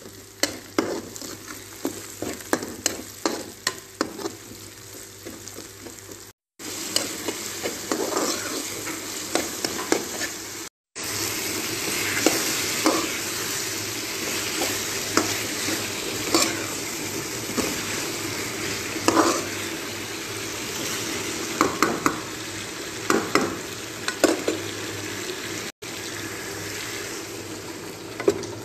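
Onions, then potato chunks with tomatoes, frying in a pan: a steady sizzle with a spoon scraping and knocking against the pan as it is stirred. The sound cuts out abruptly three times.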